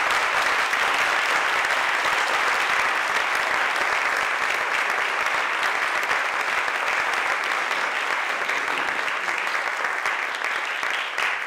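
Audience applauding: a dense, steady clapping of many hands that eases off slightly near the end.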